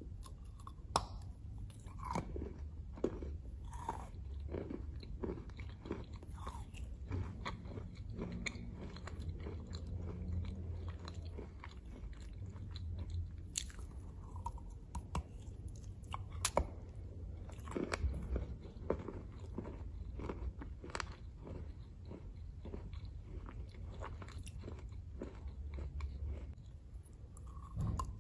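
A person biting and chewing a chunk of chalk close to the microphone: irregular sharp crunches as pieces break off, then crumbly chewing, over a faint low hum.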